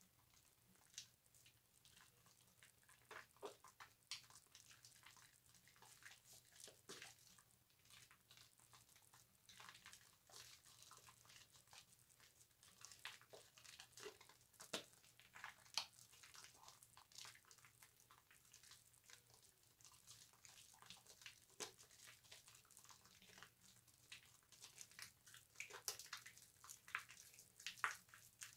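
Faint, irregular wet squishing and crackling of bar soap being worked into a loofah and lathered, with a few louder squelches near the end.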